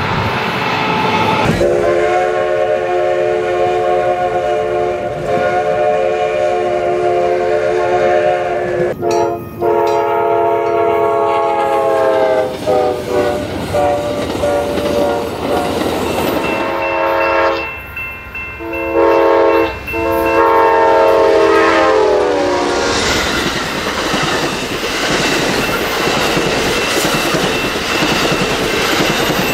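Diesel locomotive's multi-note chord air horn sounding a series of blasts: a long one of several seconds, a second long one, then shorter ones. After the horn, an Amtrak Superliner passenger train's cars rumble steadily past on the rails.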